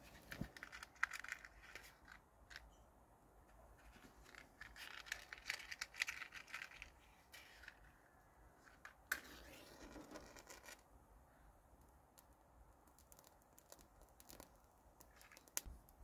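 Faint crinkling and tearing of dry kindling being handled over a metal fire tray, in three spells of a second or two with near quiet between.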